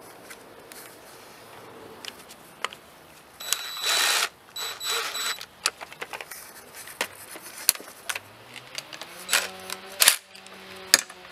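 Hand tools clinking and rattling against metal engine parts. There is a brief noisy burst about four seconds in, and near the end a hum that rises in pitch and then holds steady.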